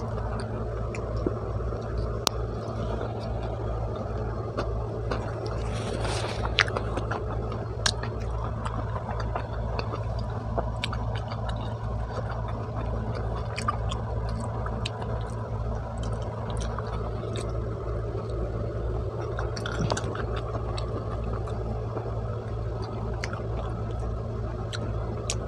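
Chewing of pizza picked up close by a lapel microphone: soft wet mouth clicks and smacks scattered throughout, over a steady low hum.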